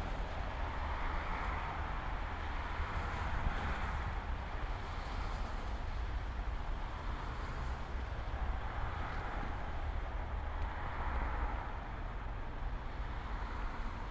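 Steady outdoor background noise: a low rumble under a hiss that swells and eases every couple of seconds.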